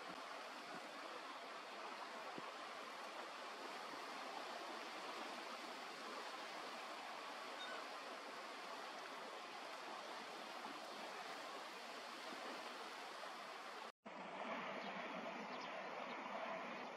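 Steady noise of wind and lapping shallow water, with no bird calls standing out. The sound cuts out for an instant about 14 seconds in, then carries on a little louder with a few faint ticks.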